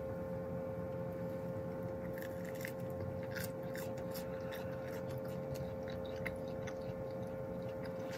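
A person chewing a bite of toasted egg-and-cheese sandwich close to the microphone, with irregular soft crunches of toasted bread starting about two seconds in. A steady low hum runs underneath.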